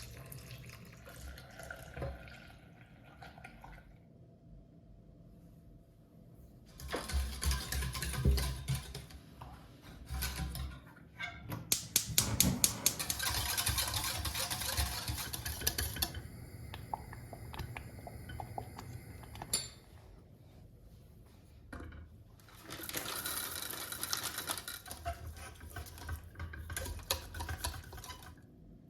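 Kitchen food-preparation sounds that come and go in several separate stretches: dishes and utensils being handled, and water.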